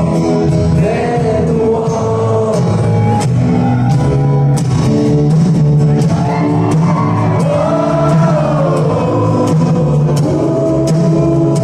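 Live band playing a rock song in a large hall: singing over guitar, with regular drum strikes.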